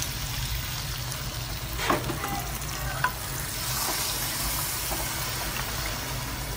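Chicken curry sizzling in a pot just after water has been poured into the fried spice paste, stirred with a wooden spatula that knocks against the pot twice, over a steady low hum.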